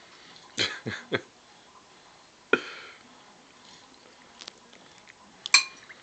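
A metal fork and small hands knocking against a bowl of food. There is a quick run of three knocks about half a second in, another near the middle, and a sharp, briefly ringing clink near the end, which is the loudest.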